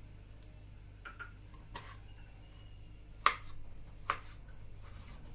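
A few sharp knocks and clinks of kitchen utensils and dishes being handled, the loudest about three seconds in, over a low steady hum.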